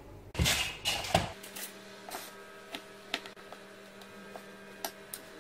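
Scattered sharp clicks and taps of a utensil against a pie dish and plate as a slice of pie is cut and served, over a faint steady hum. A brief rustle of handling comes in the first second.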